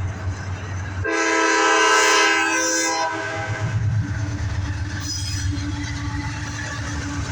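CSX freight train's locomotive air horn sounding one loud blast about a second in, held for about two seconds, over the low rumble of the locomotives. After the horn, the train's rumble and wheel clatter carry on as it passes.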